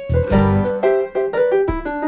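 Background music led by piano or electric piano, a quick melody of short notes over a steady bass.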